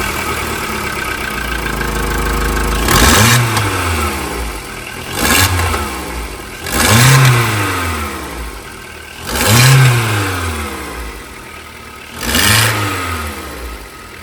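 Cold Skoda Rapid 1.6 16V CFNA four-cylinder petrol engine idling and blipped five times, the revs rising and falling back each time, with a loud, harsh exhaust. The exhaust noise comes from a cracked exhaust manifold, a known fault on these engines, with the catalytic converter removed, and it covers any knock from the engine.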